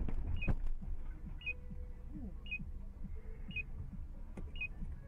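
Short electronic double beep repeating about once a second, just after a crash, over a faint low rumble; a single knock about half a second in.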